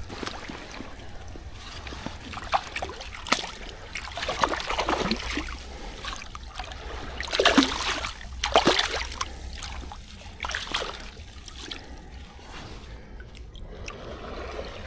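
Shallow water splashing and sloshing in irregular bursts as a landing net is worked at the water's edge and hands reach in to grab a small sea trout inside it, loudest about halfway through.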